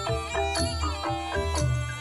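Traditional Cambodian ensemble music for classical dance: quick runs of mallet-struck xylophone notes over repeated low drum beats.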